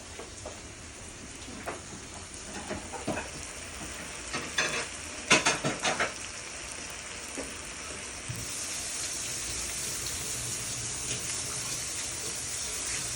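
Fish sizzling in soy sauce in a hot pan, with a few sharp knocks of utensils and a dish about two to six seconds in. About eight seconds in a louder, steady high sizzling hiss sets in.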